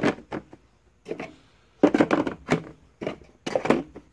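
Hard plastic tool boxes being handled, with a series of sharp clacks and knocks in several clusters as their latches are snapped shut and the stack is pressed tight.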